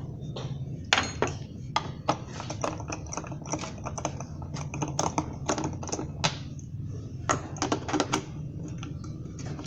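Irregular light clicks and taps of hand tools on metal parts, several a second with a few louder knocks, over a steady low hum.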